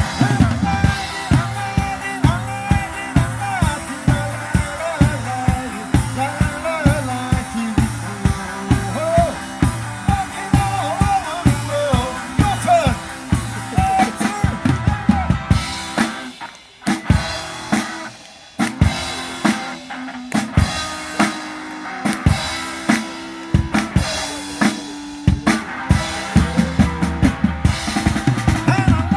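Rock-style music led by a drum kit beating a steady rhythm of bass drum and snare, with a melody line above; the music thins out and nearly stops for about two seconds a little past the middle, then the beat comes back.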